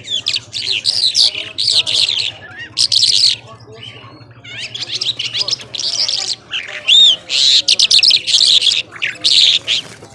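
Mashadi lark singing a fast, varied song of rapid chirps, trills and whistled notes, with a short pause a few seconds in before it picks up again. A faint steady low hum runs underneath.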